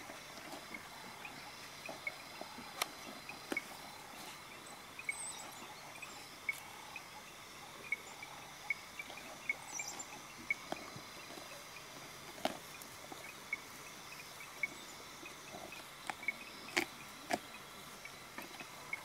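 Evening bush chorus: short high chirps repeating about twice a second over a steady high trill, with scattered faint clicks and knocks.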